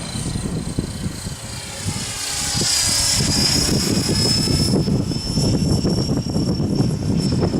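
Radio-controlled HK-T500 helicopter flying: a steady high whine from its motor and rotor that climbs a little about three seconds in and then holds, under loud gusts of strong wind buffeting the microphone.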